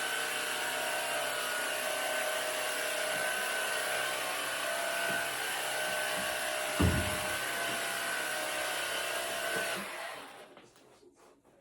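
Electric carpet-cleaning machine running steadily with a motor whine, then switched off and winding down near the end. A single thump about two-thirds of the way through.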